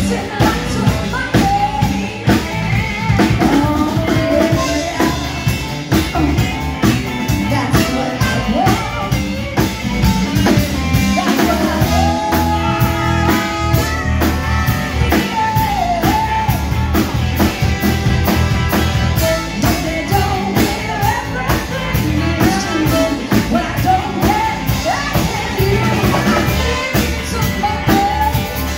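Live band playing a song: a woman singing lead over electric guitar, electric bass and a drum kit keeping a steady beat.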